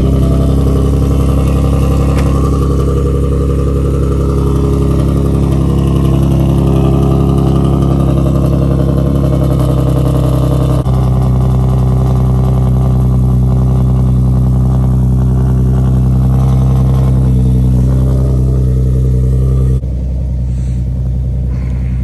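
Tuned Infiniti G37's V6 engine idling steadily while it warms up from a cold start. It gets noticeably quieter near the end.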